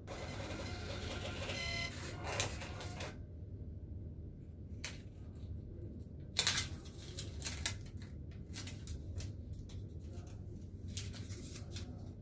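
Cash deposit machine's receipt printer whirring for about two seconds as it feeds out a receipt, then a series of clicks and paper rustles as the receipt is taken from the slot, the loudest about six seconds in, over a steady low hum.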